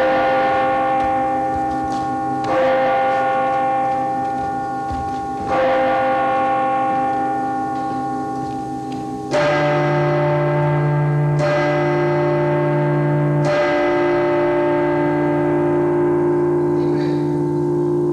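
Slow music of bell-like chimes: a struck chord about every two to four seconds, each ringing on and slowly fading. From about nine seconds in the chords turn deeper and fuller.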